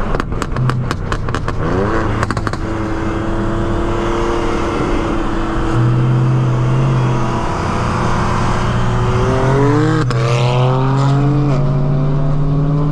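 Car engine revving up and holding at a steady pitch, then revving up and down again near the end. A rapid run of sharp clicks sounds over it in the first two seconds or so.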